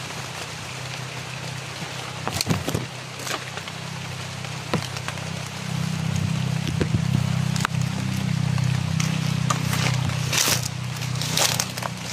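Footsteps and rustling leaves as someone pushes through dense undergrowth, with now and then the snap or crackle of twigs, over a steady low rumble that gets louder about halfway through.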